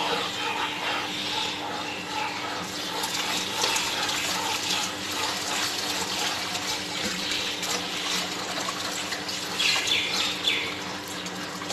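Beetroot juice simmering and sizzling in a non-stick frying pan over a low gas flame, being reduced until its water cooks off, while a slotted plastic spatula stirs it around the pan. A steady low hum runs underneath.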